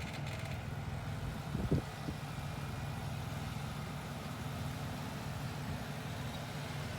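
A vehicle engine idling steadily, with one brief louder sound just before two seconds in.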